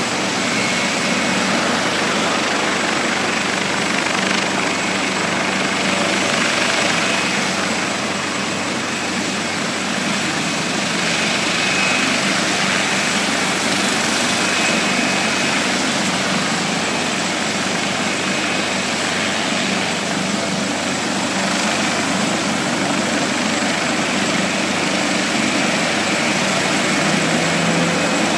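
Maryland State Police medevac helicopter running on the ground with its rotors turning: a steady, loud rush of rotor and turbine noise with a thin, steady high whine.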